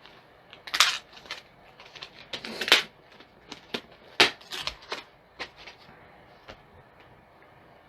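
Plastic packaging of new laptop RAM sticks being handled and opened: a run of irregular sharp clicks, snaps and brief crinkles, the loudest about a second in, near three seconds and past four seconds.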